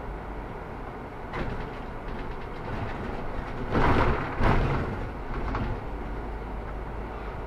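Solaris Urbino 18 articulated city bus on the move: steady low running and road rumble, with a louder stretch of rattling noise about four seconds in.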